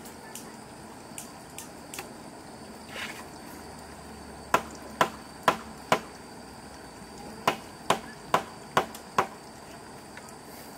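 Sharp wooden knocks from a wooden post being pounded into place: four about half a second apart, a short pause, then five more at a similar pace.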